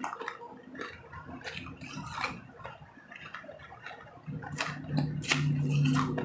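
Close-up chewing of refrozen powdery snow and ice: scattered sharp crunches and crackles. About four seconds in a louder low steady hum comes in.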